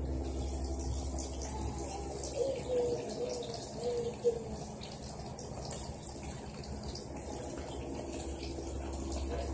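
A thin stream of water poured from a plastic cup into a plastic mixing bowl of flour, a steady trickle, with a single brief knock a little over four seconds in.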